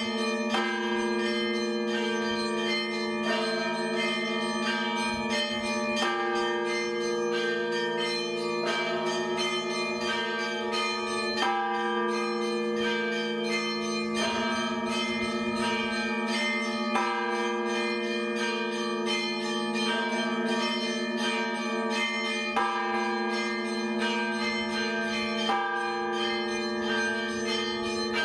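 Church bells ringing: many bells struck in quick succession, each note ringing on, over a steady low hum from a large bell.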